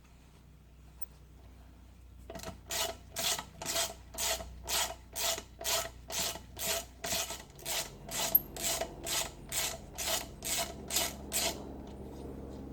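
A hand tool rasping on metal in steady back-and-forth strokes, about two a second. The strokes start about two seconds in and stop shortly before the end.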